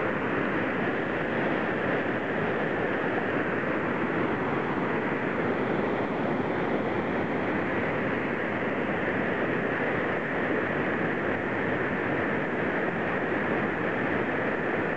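Whitewater rapids rushing over rock ledges, a steady, unbroken wash of water noise.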